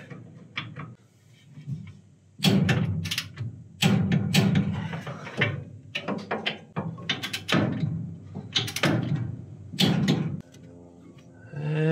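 Metal clanks and clicks of hand tools and brake hardware as a front disc brake caliper is bolted on, in several short bursts with quiet gaps between them.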